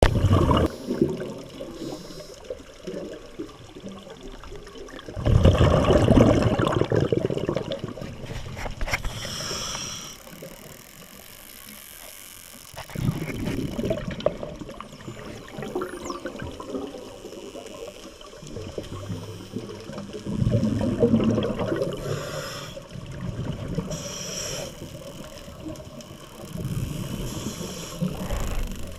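Scuba diver breathing through a regulator underwater: slow breaths, each exhale a loud rush of bubbles about every seven seconds, with a brief hiss from the regulator on the inhales between them.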